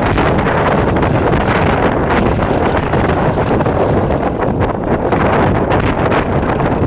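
English Electric Class 37 diesel locomotive running under way, its V12 engine heard steadily from the coach behind, with heavy wind buffeting on the microphone. A thin high whistle sits above the engine, dipping a little about five seconds in.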